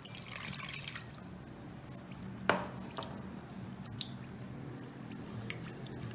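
Water poured from a mug into cornflour in a metal pot for about the first second, then a silicone spatula stirring the cornflour-and-water slurry, with a few light knocks of the spatula against the pot, the sharpest about two and a half seconds in.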